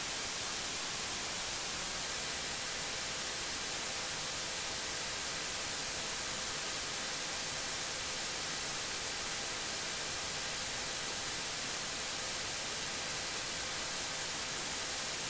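Steady static hiss, even and unchanging, strongest in the high end, with no other sound standing out.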